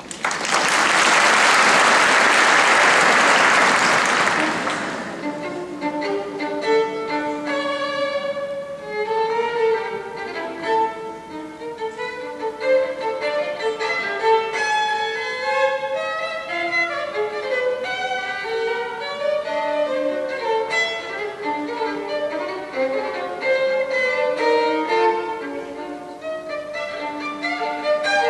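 Audience applause for about the first five seconds, then a solo violin playing an unaccompanied encore in a run of quick, changing notes.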